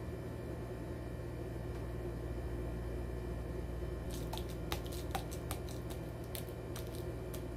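Plastic ketchup squeeze bottle squeezed upside down, giving a run of short sputtering squirts and clicks over the second half, about a dozen in three seconds. Before that there is only a steady low room hum.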